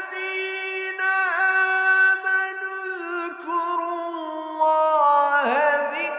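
A male Quran reciter chanting Arabic verse in a melodic, drawn-out tajweed style, holding long notes that slide and dip in pitch.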